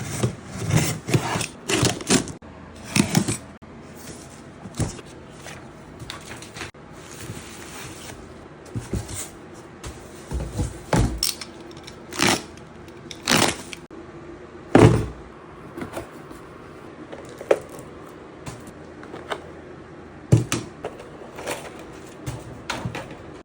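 Unboxing a mechanical keyboard: the cardboard box and its packaging handled, with irregular scrapes, knocks and a rustle of wrapping about eight seconds in.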